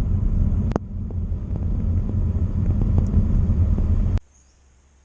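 Low, steady rumble of a running motor, with a few faint clicks, cutting off abruptly about four seconds in.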